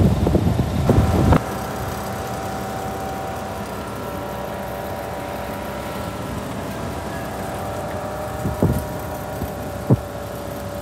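Scania R400 crane truck's engine idling steadily, with a few constant whining tones over the hum. Wind buffets the microphone for about the first second, and two short knocks come near the end.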